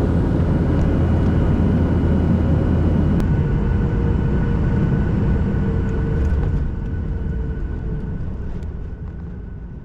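Jet airliner engines heard from inside the cabin: a loud, steady low rumble with a thin high whine, dying away over the last few seconds.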